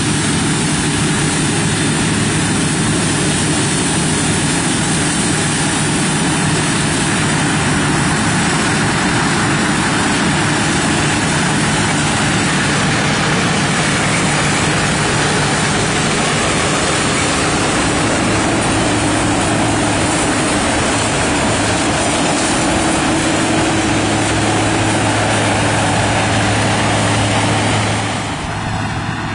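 Claas Mega 218 combine harvester running steadily, a heavy engine hum under a dense mechanical rush. The sound drops in level and loses its high rush near the end.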